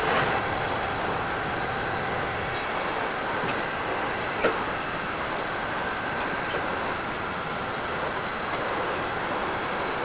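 Metal lathe running while its tool cuts a long square thread, a steady noisy whir with a faint high whine. A single sharp click about four and a half seconds in.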